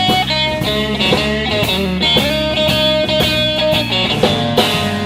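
Live blues-rock band playing between sung lines: electric guitar with bass and drums.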